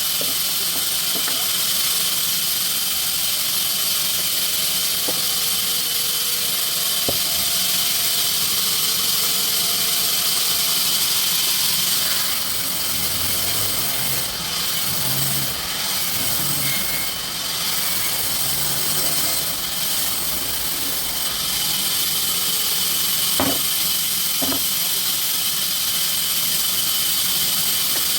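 Sawmill machinery running steadily: a continuous high whine and hiss, with a few sharp knocks.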